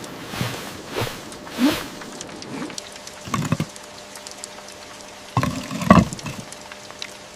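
Steady rain patter with a handful of irregular rustles and soft thumps, the loudest cluster about five and a half to six seconds in.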